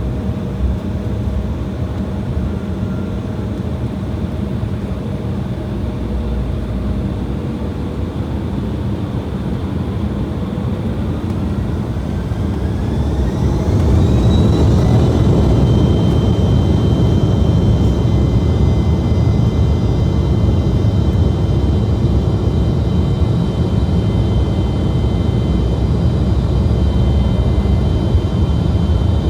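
Embraer E175's twin GE CF34-8E turbofan engines heard from inside the cabin, spooling up to takeoff thrust. A steady low rumble gives way, about 11 seconds in, to a whine rising in pitch as the engines grow louder, then holds as a steady loud roar with a high whine.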